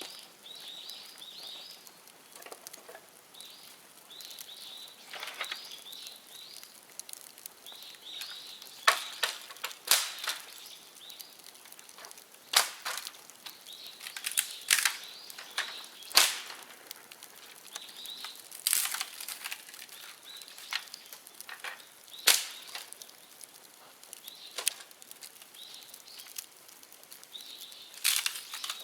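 Bonfire of dry dead bamboo burning, with sharp, loud pops at irregular intervals as the bamboo bursts in the fire. Between the pops, a bird repeats short high chirping calls.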